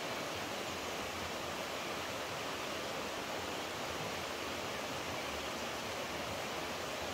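Flowing water rushing steadily, an even hiss with no change in level.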